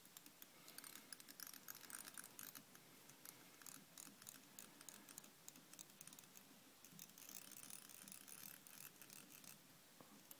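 Faint, fast ticking crackle of fly-tying thread paying off a bobbin and being wrapped around the hook in a vise, in three runs of winding with short pauses between.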